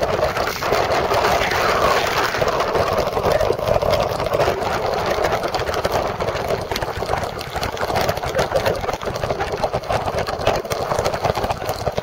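Waterfall water pounding straight onto the camera and its microphone: a loud, dense, steady rush with countless fine spatters and crackles.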